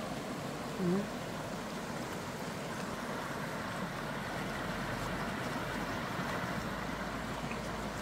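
A shallow, rocky mountain stream flowing steadily over stones, giving an even sound of running water.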